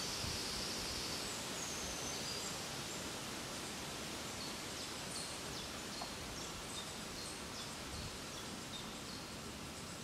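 Steady woodland background hiss with faint high bird chirps: a couple of short whistled notes early and a run of quick high chirps in the second half.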